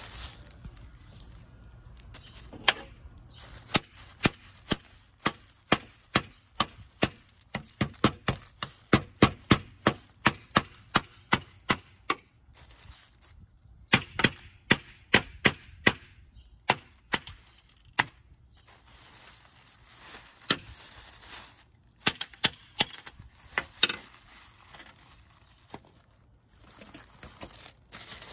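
A hammer knocks repeatedly on a glazed ceramic vase to crack it open, in several runs of sharp taps about two to three a second with short pauses between them.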